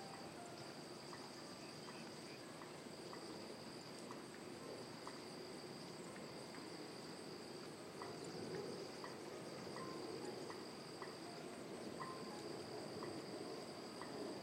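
Steady insect chorus: a constant high-pitched drone on two pitches, over faint outdoor background noise.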